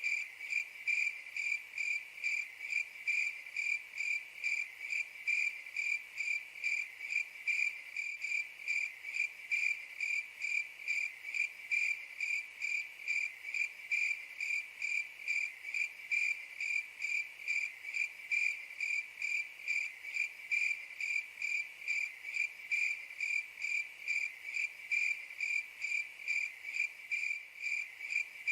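Cricket chirping in a steady, even rhythm, about three high-pitched chirps a second.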